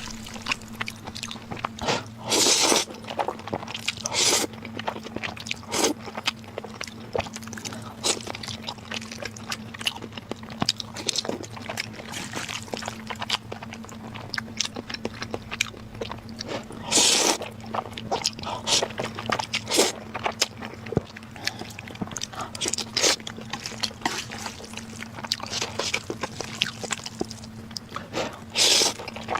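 Close-miked eating sounds: steady wet chewing and small mouth clicks, with a few louder, longer bursts scattered through, over a steady low hum.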